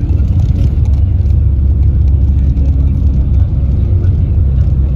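Bus running on the road, a steady low engine and road rumble.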